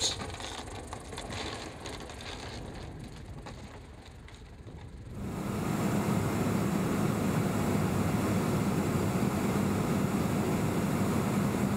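Quiet rattling, clicking mechanical sound from a ski-equipped Maule on plastic-bottomed skis on gravel. About five seconds in it gives way abruptly to a louder, steady aircraft engine drone with a strong low hum.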